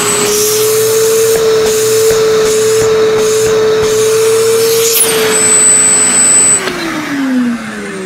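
Bosch GAS 10 PS wet/dry shop vacuum motor running with a steady whine and air rush while its intake is blocked by hand. The semi-automatic filter-cleaning button is pressed to reverse the airflow and knock dust off the filter, making several brief pulses in the air sound. Near the end the motor is switched off and winds down in pitch.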